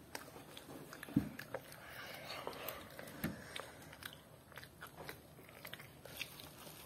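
A person chewing and biting fruit close to the microphone: many small wet smacks and clicks of the mouth, with two louder dull thumps, about a second in and at about three seconds.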